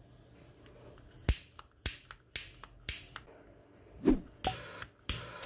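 Piezo igniter of a jet flame butane torch lighter snapping as the trigger is pressed again and again, about seven sharp clicks roughly half a second apart. From about four seconds in, each click is followed by a short hiss, the lighter sparking and firing after its spark generator was replaced.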